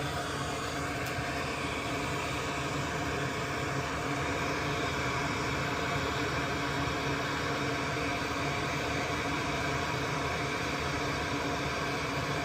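Hot-air rework station blowing steadily on the board to melt the solder under a MOSFET, a continuous even rush of air with a faint fan hum.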